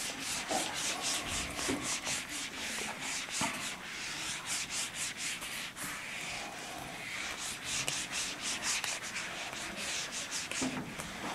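Whiteboard being wiped clean with an eraser: a quick series of dry, hissing rubbing strokes, several a second, going on and off as the board is cleared section by section.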